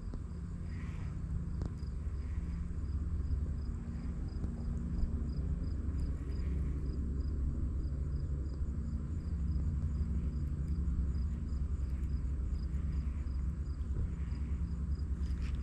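Insects chirping in a steady, even rhythm of about two high pulses a second, over a low steady rumble.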